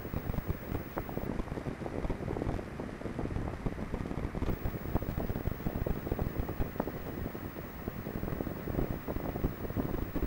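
Indoor skydiving vertical wind tunnel running: a steady rush of high-speed air through the flight chamber, buffeting the microphone with a low, fluttering rumble.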